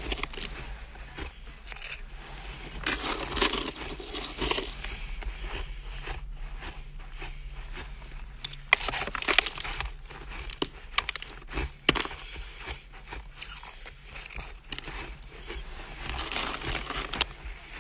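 Close-up crunching and crackling of chest-freezer frost being bitten and chewed: a stream of sharp cracks, with denser bursts of crunching about three seconds in, around nine seconds and near the end.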